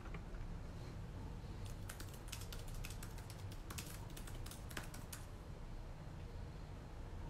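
Typing: a quick, irregular run of light key clicks between about two and five seconds in, over a steady low background hum.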